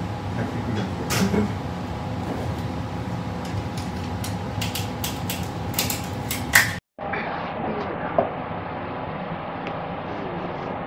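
Sharp slaps and knocks of a chef striking freshly shucked clam meat on a wooden board by hand, one about a second in and several in quick succession later, over a steady background hum. The sound cuts off abruptly about two-thirds through, leaving only a quieter steady hum.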